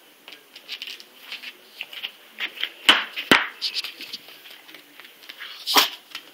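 A small dog scampering, its paws and claws scuffing and clicking on the floor in quick irregular bursts, with three sharp knocks: two about three seconds in and one near the end.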